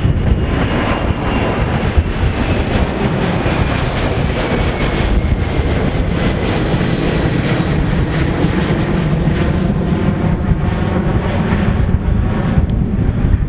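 Three-engine McDonnell Douglas MD-11F freighter climbing out after takeoff, its jet engines running at climb power. The sound is loud and steady, with a high whine that falls in pitch over the first few seconds as the aircraft passes and moves away.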